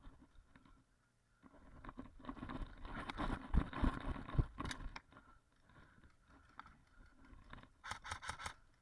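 Rustling and scraping of a moving airsoft player's clothing and gear, with a few low thuds in the middle, then near the end a quick run of about five sharp clicks.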